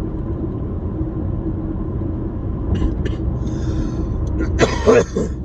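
Steady low rumble of a car's engine and tyres heard from inside the cabin while driving, with a short loud voice sound, like a breath or throat noise, near the end.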